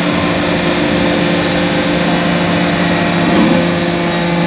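Briquetting press running, giving a steady mechanical hum with several held tones from its hydraulic drive as it cycles the ram.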